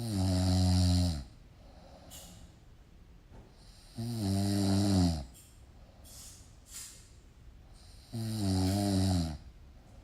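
Snoring: three snores about four seconds apart, each lasting about a second and dropping in pitch as it ends, with quieter breathing noise between them.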